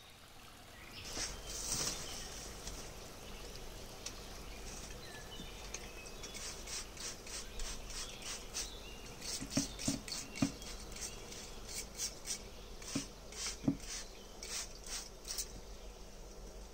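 Hand spray bottle misting a dry-start aquarium: a quick run of short hissing sprays, about two or three a second, with a few soft knocks among them.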